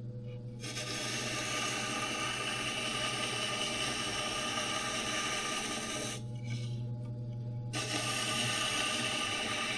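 Scraper blade being ground at a 5-degree negative rake on a running 600-grit diamond wheel: a steady motor hum under an even grinding noise. The grinding stops for about a second and a half past the middle while the motor runs on, then starts again.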